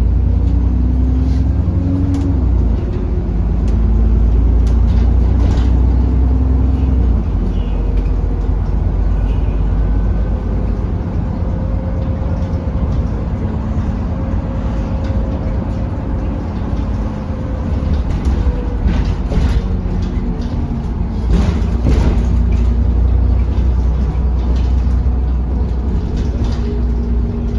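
Inside a moving double-decker bus: steady low engine and road rumble with occasional rattles and knocks, and a faint thin whine partway through.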